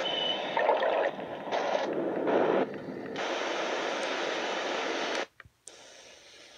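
SoundSpa Recharged clock radio playing its white-noise sound through its speaker, a loud steady hiss that changes in tone and loudness several times. About five seconds in it cuts off suddenly, leaving a faint hiss as the radio switches over to FM.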